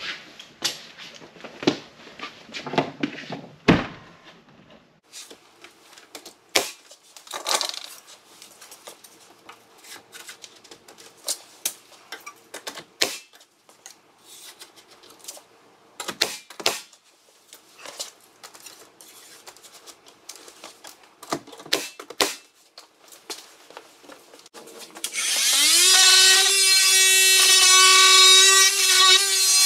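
Scattered sharp knocks and clicks from trim carpentry with a nail gun. Near the end, a small power tool motor winds up and runs steadily for about four seconds, then stops; it is the loudest sound here.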